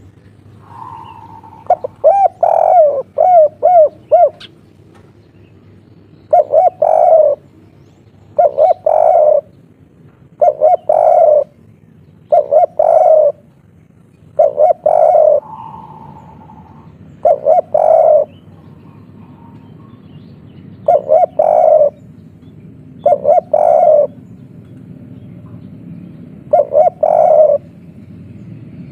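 Spotted dove cooing loudly close up, the three-note 'kuk 3' coo: a quick run of about five short wavering notes a couple of seconds in, then the coo phrase repeated roughly every two seconds.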